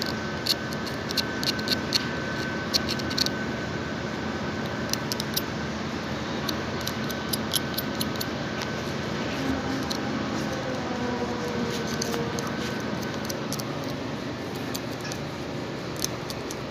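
Sharp little metallic clicks and clinks of hand tools and parts being handled, scattered over a steady background hiss.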